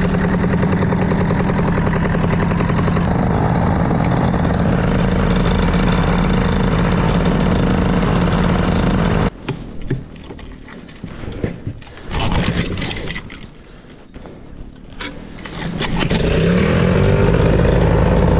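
Paramotor engine on an air boat running steadily behind its propeller, just caught after being primed with fuel down the carburettor. About nine seconds in the sound drops away suddenly to a much quieter stretch of scattered knocks, then near the end the engine rises in pitch and runs up to full level again.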